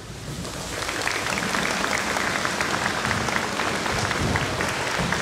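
Audience applauding, many hands clapping, swelling over the first second and then holding steady.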